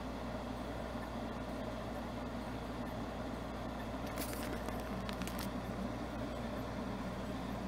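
Car engine idling steadily, heard from inside the cabin as a low, even hum. A few faint clicks come about four to five seconds in.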